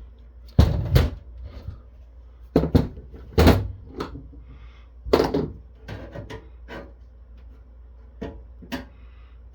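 Sharp metal clunks and knocks from the steel chassis and board of a Cisco Catalyst 3650 network switch being pushed, pried and worked loose during disassembly: about ten knocks in small clusters, with quieter rattling between.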